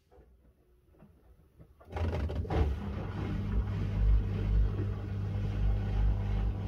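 Miele W1 washing machine: after faint clicks, a motor starts suddenly about two seconds in and runs with a steady hum over a low rumble.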